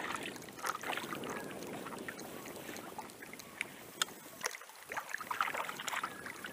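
Paddle dipping and water lapping against a canoe as it is paddled and glides on calm water, with a few small knocks of the paddle or hull.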